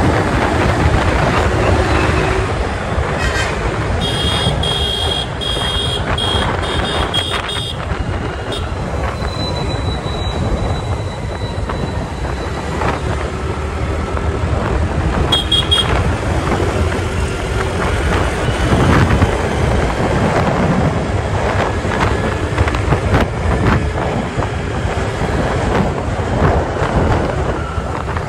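Motor scooter riding through town traffic: steady wind rush on the microphone over the scooter's engine and passing vehicles. A run of short high beeps comes about four seconds in and lasts a few seconds, with a brief pair again about halfway through.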